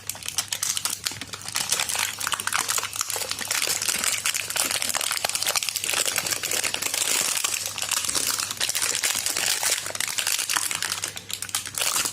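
Packaging being unwrapped by hand from a brake caliper bracket: dense, continuous crinkling and rustling made of many small crackles.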